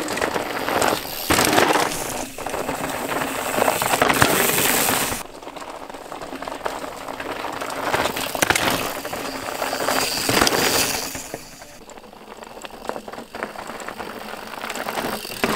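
Mountain bike tyres crunching and crackling over loose, rocky dirt trail as riders roll past one after another, the sound swelling and fading several times as each goes by.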